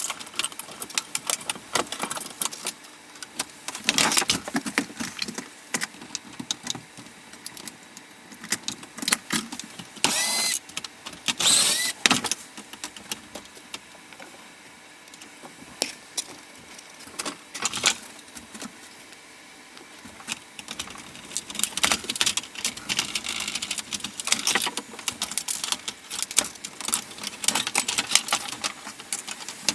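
Irregular clicking, rattling and scraping of a laptop being taken apart by hand: plastic casing and small metal parts handled and pried loose, with a few longer, louder spells about ten and twelve seconds in.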